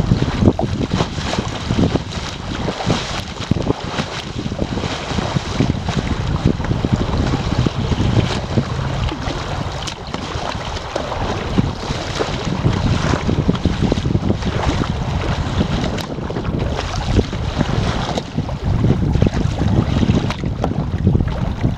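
Choppy river rapids rushing and slapping against a kayak riding through a wave train: a continuous loud rush of water broken by many small splashes.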